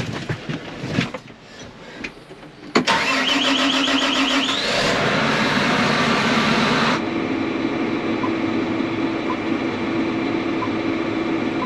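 John Deere R4038 sprayer's 9-liter diesel engine cranked by its starter for about two seconds with a rising whine, catching and running loud, then settling about seven seconds in to a steady idle at about 900 rpm. A few knocks and clicks come before the start.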